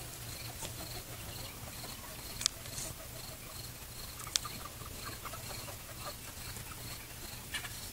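A cricket chirping steadily, about two short high chirps a second, over a low steady hum, with two sharp clicks about two and a half and four and a half seconds in.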